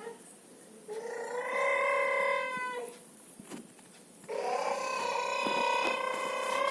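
Baby making long, drawn-out vocal sounds: two held notes, the second starting about four seconds in and lasting longer.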